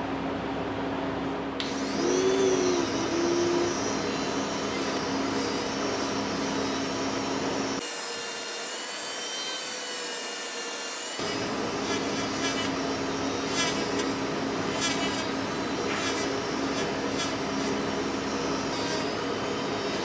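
A small power tool running steadily with rubbing, sanding-like noise against the workpiece. For about three seconds near the middle the sound changes abruptly to a thinner, hissier tone.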